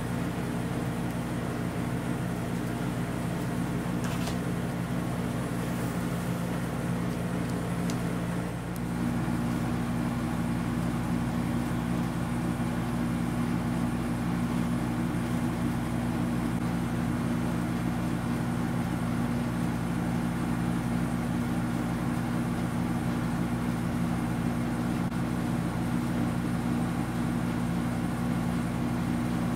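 A steady low mechanical hum, getting slightly louder about nine seconds in, with a couple of faint clicks before that.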